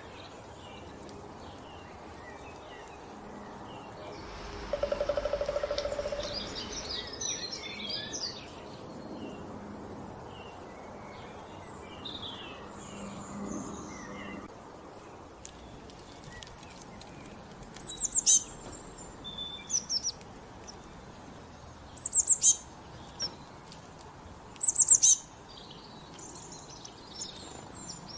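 Wild birds calling and chirping over a steady outdoor background. There is a burst of high chatter about five to eight seconds in. In the second half come several loud, sharp, high chirps in short groups.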